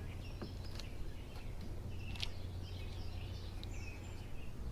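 Faint bird chirps over a steady low hum, with a few light clicks and taps.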